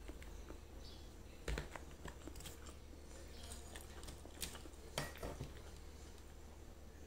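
Quiet eating sounds from a person chewing food, with a few sharp clicks and knocks, the loudest about one and a half seconds in and again about five seconds in, over a low steady hum.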